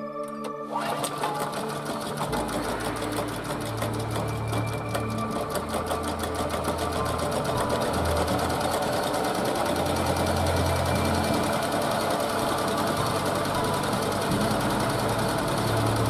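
Delzer single-cylinder petrol engine of a DIY generator running just after a cold start in about −10 °C frost, a rapid even clatter whose speed wavers up and down as it warms, growing steadily louder.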